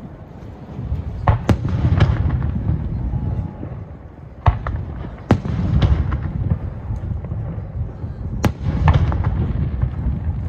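Aerial fireworks shells bursting overhead: a series of sharp bangs, about seven, each followed by a deep rolling rumble of echo.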